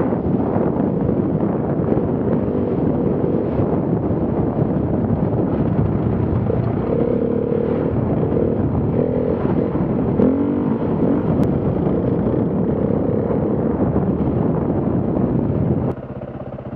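KTM enduro motorcycle engine running at speed, around 40 km/h, with heavy wind noise on the on-bike camera's microphone. About sixteen seconds in it cuts to the bike standing still, its engine idling, much quieter.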